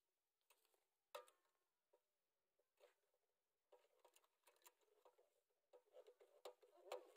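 Near silence, with a few faint scattered clicks and light rustling near the end.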